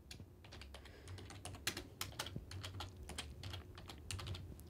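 Computer keyboard keys clicking in a quick, uneven run of typing, one keystroke after another for a few seconds.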